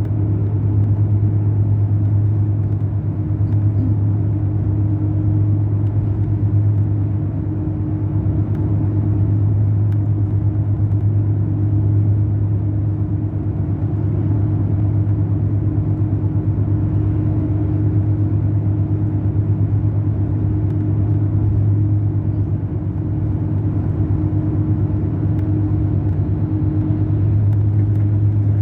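Mercedes-Benz O500 RSD BlueTec5 coach's diesel engine running at a steady pitch, a loud low hum with a fainter higher tone above it.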